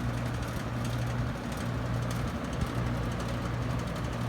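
1972 Lasko Model 4700 20-inch two-speed box fan running on low: a steady low motor hum with the air rush, and the worn grilles rattling.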